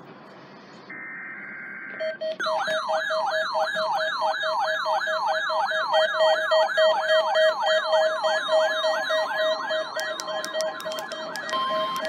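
NOAA weather radio receivers sounding their alert alarms as they activate on a Required Weekly Test. A brief burst of data tones about a second in is followed by a rapid warbling siren, about three sweeps a second, over a pulsing beep, and a steady tone joins near the end.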